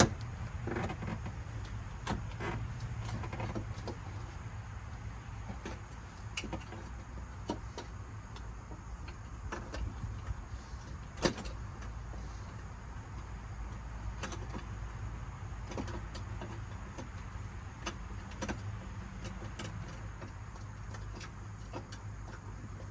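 Scattered small clicks and knocks of a headlight mounting bolt and bracket being worked into place by hand and tool, with one sharper knock about eleven seconds in, over a steady low rumble.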